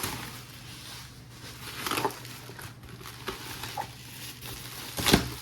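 Handling noise from product packaging: scattered rustles and small knocks as the box is handled out of its plastic bag, with a louder rustle about two seconds in and a sharper, louder knock about five seconds in, over a steady low hum.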